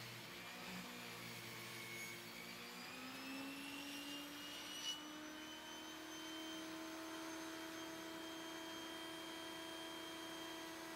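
Benchtop table saw running as it resaws a pallet board in half along the fence: a steady motor whine that rises in pitch about three seconds in and then holds level, with a brief tick near five seconds.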